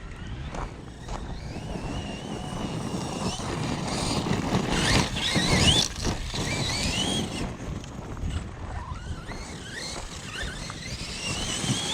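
RC truck's electric motor whining as it is driven over rough ground, the pitch rising and falling with the throttle, over the rumble and crunch of the tyres on the terrain; the loudest stretch comes about halfway through.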